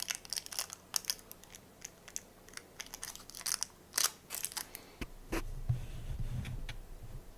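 Irregular small clicks and crinkly crackles of hands working the plastic and thin coil wire of a dismantled headphone driver. From about five seconds in, a low rumble of handling noise joins.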